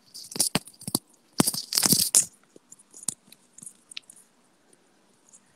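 Handling noise from wired earphones being untangled and fitted: clattering clicks and rustles of the cable and plug close to the microphone, loud in the first two seconds or so, then a few faint ticks.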